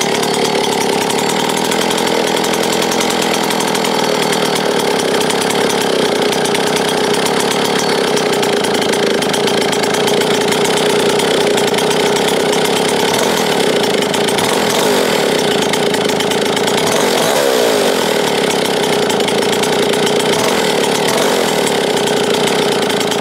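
A 1970s Stihl S10 two-stroke chainsaw running steadily on the bench while its carburettor is being tuned, its idle screw turned up half a turn to keep it from dying for lack of fuel. The pitch wavers briefly about seventeen seconds in.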